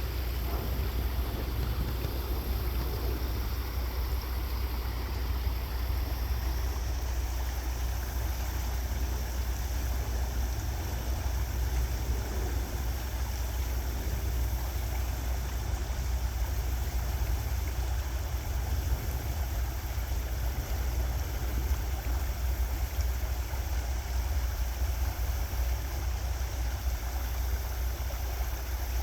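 Credit River water flowing: a steady rushing with a constant low rumble underneath.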